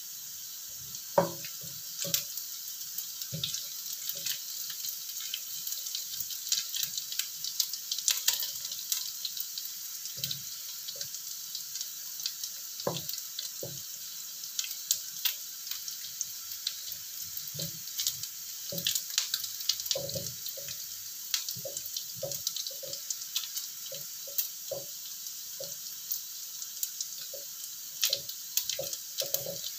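Tempeh cubes and small anchovies frying in oil in a wok: a steady sizzle full of fine crackles. A wooden spatula knocks and scrapes against the pan at irregular intervals as it stirs.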